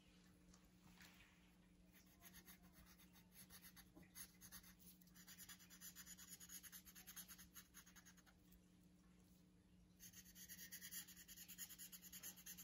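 Faint scratching of a black felt-tip marker on paper in quick back-and-forth strokes as a thick ring is inked in. It comes in two spells with a short pause between them.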